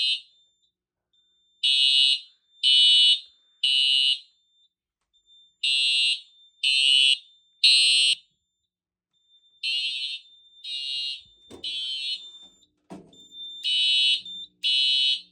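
Simplex TrueAlert fire alarm horn sounding in the temporal-3 evacuation pattern: groups of three blasts about a second apart with a longer pause between groups. The alarm has been set off by a magnet test of a Simplex 2098-9201 ionization smoke detector.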